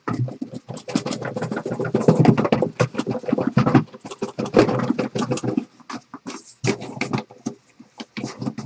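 Shrink-wrapped card boxes being worked out of a tight cardboard case: cardboard and plastic wrap scraping and rustling as the boxes stick, with a short lull about six seconds in.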